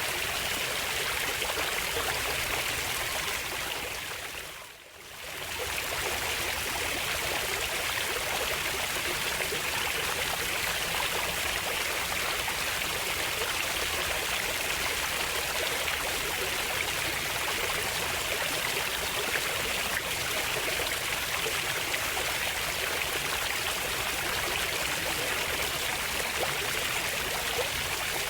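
Running water of a stream, a steady even rush. About five seconds in it briefly fades down almost to nothing and swells back up.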